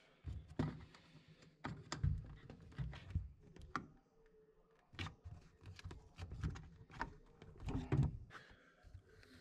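Scattered clicks, taps and dull knocks of hands working the lower end of a new washer shock absorber into its plastic mount, the loudest knocks about two seconds in and near the end.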